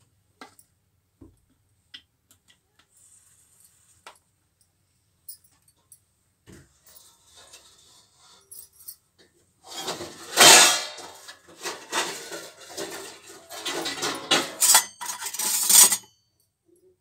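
Metal kitchen utensils clattering and clinking as they are rummaged through. A few light clicks come first, then loud, dense clatter from about ten seconds in that stops shortly before the end.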